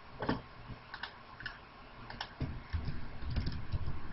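Computer keyboard typing and mouse clicks: scattered light clicks at an irregular pace, bunching closer together in the second half.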